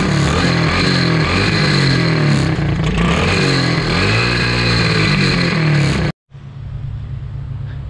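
Small bike engine revving up and down through an exhaust packed with steel wool as a makeshift muffler, the wool burning and glowing in the outlet. The engine sound cuts off suddenly about six seconds in, followed by a quieter steady hum.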